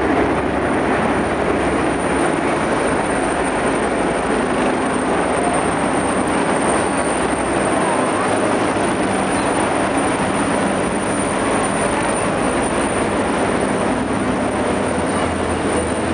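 Helicopter flying low overhead and out over the pitch, its rotor and engine noise steady and loud over the broad murmur of a large stadium crowd.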